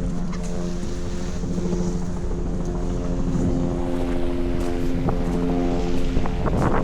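A vehicle engine running close by amid street traffic: a steady low rumble with a droning hum that shifts in pitch a few times, and a few light clicks near the end.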